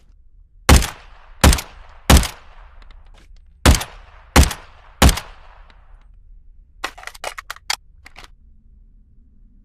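Uzi submachine gun firing single shots: two strings of three, each shot about 0.7 s apart and ringing off briefly. A quick run of quieter clicks follows near the end.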